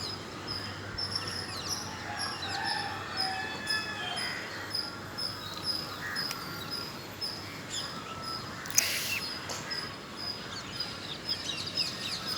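Small birds chirping with many short, quick calls, over a high-pitched chirp that repeats steadily about two or three times a second. A brief loud rustle-like burst of noise about nine seconds in.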